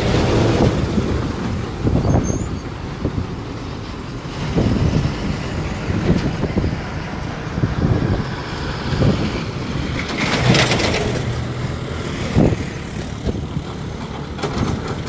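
Heavy diesel trucks driving past close by, one after another, engines running with a low rumble that swells and fades as each goes by, with tyre noise on the wet road. A louder hissing rush comes about ten seconds in.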